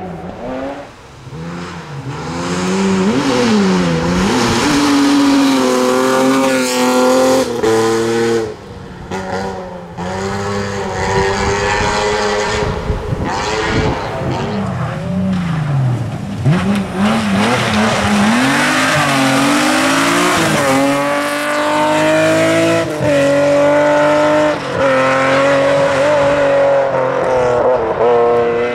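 BMW M3 E36 rally cars' straight-six engines at full throttle on gravel stages, revving hard with the pitch climbing and dropping again and again through gear changes and lifts. Around the middle the engine falls to a low pitch before climbing again.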